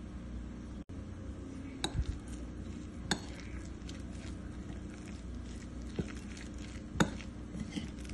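Metal spoon stirring a soft mash of lentils and chopped vegetables in a ceramic bowl, knocking against the bowl in a handful of scattered clinks, the loudest about seven seconds in, over a steady low hum.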